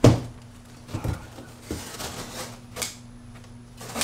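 Large corrugated cardboard box being torn open: a thud as a side panel drops at the start, then scattered clicks and scraping as the cardboard is cut and ripped at a corner.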